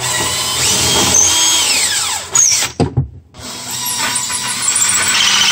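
Makita 18V cordless drill running a bit through the wooden sink-cabinet panel for a pilot hole, its whine falling as it slows about two and a half seconds in. After a brief break with a knock, the same drill runs again, now driving a hole saw through the panel.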